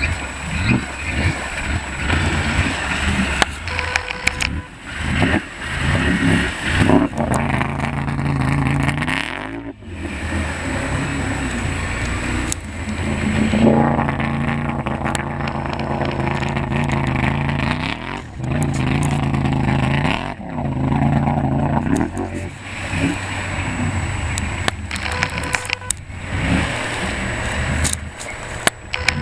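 Can-Am Renegade 800 ATV's V-twin engine, fitted with a full Muzzy exhaust, revving up and easing off over and over as the quad churns through deep water.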